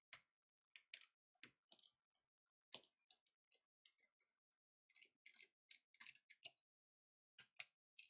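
Faint, irregular clicks and scrapes of small repair tools and plastic parts as a tablet is being taken apart, about a dozen short ticks spread unevenly with a gap of about a second near the end.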